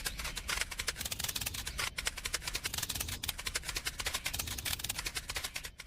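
Rapid, irregular mechanical clicking and rattling, many clicks a second, over a low rumble.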